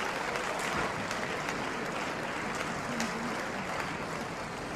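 Steady applause from a large body of parliament members clapping in their seats in a big debating chamber.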